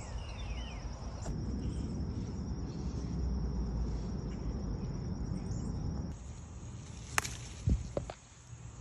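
Insects trilling steadily in a high, fine pulsing buzz over a low rumble. The sound changes abruptly about six seconds in, and a few sharp clicks follow near the end.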